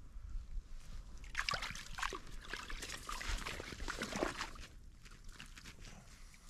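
Water splashing and sloshing in a slushy ice-fishing hole as a hooked smallmouth bass is hand-lined up and lifted out. The splashing comes in a burst of quick uneven strokes from about a second in and dies down after about four seconds.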